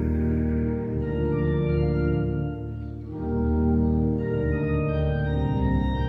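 Organ playing held chords over a deep bass; about three seconds in the sound thins briefly, then a new, fuller chord comes in.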